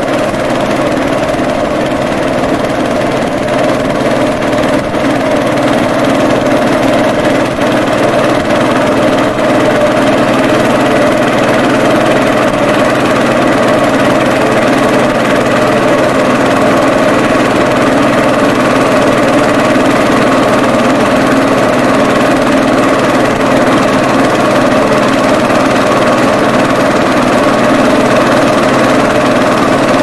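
A boat engine running steadily at constant speed, an even drone with a few steady tones.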